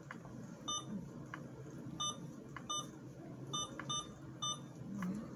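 IV infusion pump giving about six short, identical electronic beeps at uneven intervals, with a few faint clicks between them, as its keypad is pressed while the pump is being set up.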